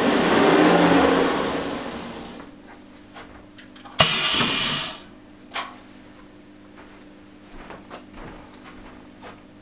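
The slide-out lower table of a pneumatic heat press being pushed in on its runners: a rumbling slide that fades over about two seconds. About four seconds in comes a sudden, sharp hiss of compressed air lasting about a second as the air cylinder drives the heated platen down. A short second puff follows.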